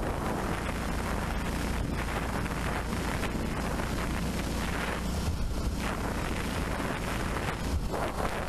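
Boat's outboard motor running steadily as the boat travels, with wind rushing over the microphone.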